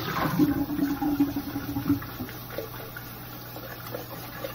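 Tap water running as a glass mason jar is rinsed out, busiest in the first two seconds and quieter after.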